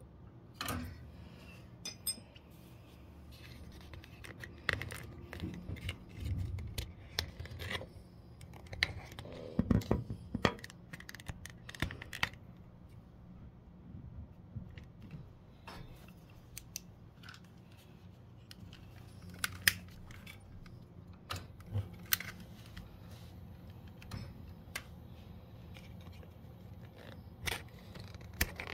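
Scattered small clicks, taps and metallic rattles of hands and parts being worked at a gas boiler's pilot and thermocouple assembly, with a cluster of louder knocks about ten seconds in, over a low steady hum.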